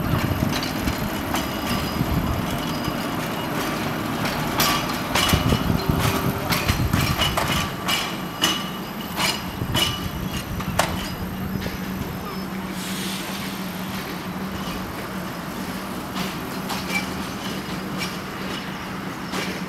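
Narrow-gauge electric tram running on its track: a steady rumble, with a run of sharp clicks and clatter in the middle from the wheels over rail joints and points, then a steady hum.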